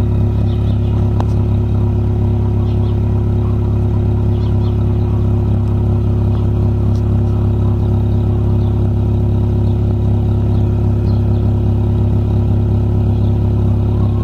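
Chevrolet Corsa engine idling steadily through a stainless-steel Fortuna motorcycle muffler adapted to the car, giving a constant deep exhaust drone with no revving.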